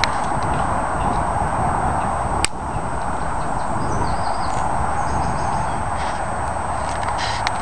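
Steady wind noise buffeting the microphone beside choppy lake water, with one sharp click about a third of the way in and a few faint high chirps in the middle.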